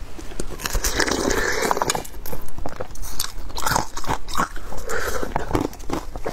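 Thin ice being bitten and chewed close to a microphone: a run of sharp cracks and crunches coming in uneven clusters.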